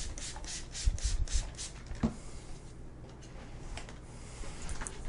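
Hand-pumped plastic spray bottle misting water over a tray of unbaked cinnamon rolls before their second rise: a quick run of short spritzes, about three or four a second, that stops about a second and a half in. A single knock follows about two seconds in.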